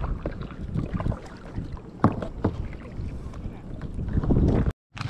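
Kayak being paddled: irregular splashes and knocks of the paddle in the water and against the hull, with a sharp knock about two seconds in. The sound stops abruptly near the end.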